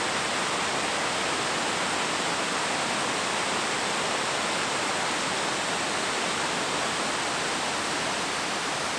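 Steady, even rush of water pouring down a small creek waterfall cascade, heard close up.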